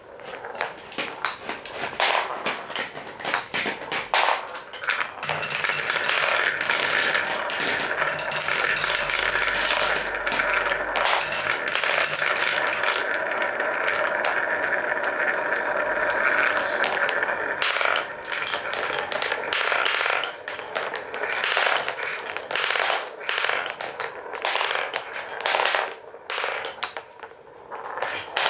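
Wooden balls clacking and knocking against wooden blocks and track pieces in many quick, irregular hits. Through the middle stretch, a steady rolling rumble joins the hits as a crowd of balls circles a wooden funnel bowl.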